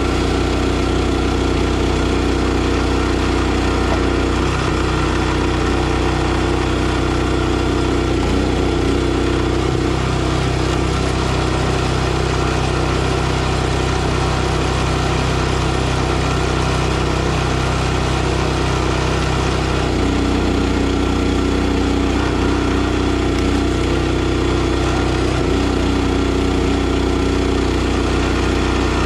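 NorthStar 37-ton log splitter's gas engine running steadily as firewood is split, its note shifting a few times as the load on the machine changes.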